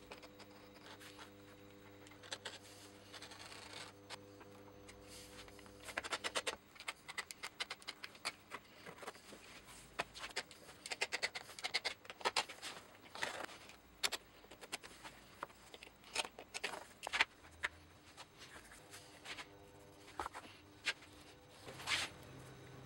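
Thick leather being cut with a blade over a plastic cutting board: quick runs of short rasping strokes, starting about six seconds in.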